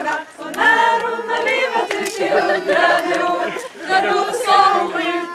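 A group of people singing together without accompaniment, several voices on sustained, held notes, with a short break between phrases near the start.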